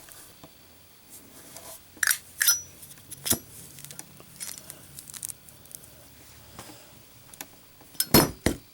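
1935-replica Zippo lighter giving sharp metallic clicks and clacks in a drop test: a few single clicks two to three and a half seconds in, then a louder double clack with a dull knock near the end.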